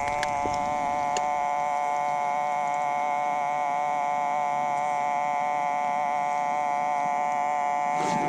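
Metal detector giving a continuous, steady electronic tone with a buzzy edge, held without a break for about eight seconds.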